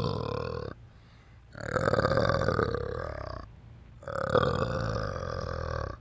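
Adult male orangutan giving low, pulsing, belch-like calls, each about two seconds long with short pauses between: one already under way, ending under a second in, then two more.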